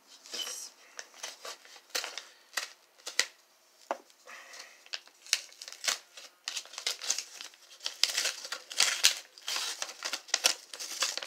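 A paper envelope being cut open with scissors and handled: irregular paper crinkling and rustling with many sharp snips and crackles.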